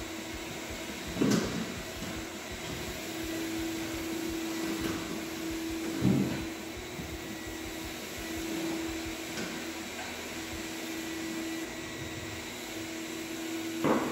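Steady hum of an electric motor running, its tone swelling and fading, with three brief knocks: one about a second in, one near the middle and one at the end.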